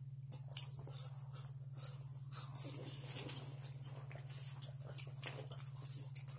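Crunchy spicy chips being chewed, an irregular crackling crunch, over a steady low hum.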